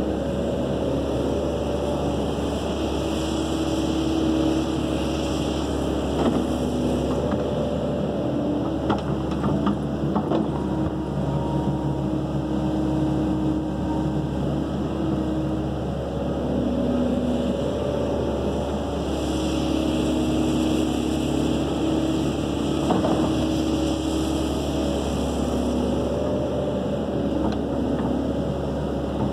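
Kobelco SK135SR excavator's diesel engine and hydraulics running under load while digging and swinging, the engine and hydraulic note stepping up and down as the controls are worked. A few light knocks are heard along the way.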